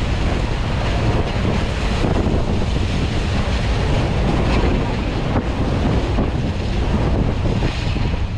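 Steady wind buffeting the microphone on a ferry's open deck, with the rush of water past the hull underneath.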